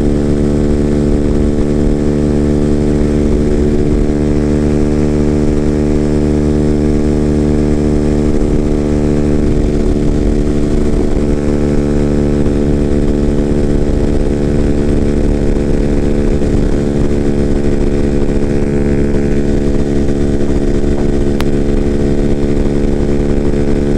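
Freedom Fighter 200 EFI motorcycle's engine and open exhaust, its factory silencer baffle removed, running steadily in sixth gear at highway cruising speed. The pitch and loudness hold level throughout, with no shifting or revving.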